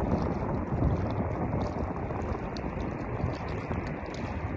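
Steady rushing noise of wind on the microphone and flowing river water, with no distinct events standing out.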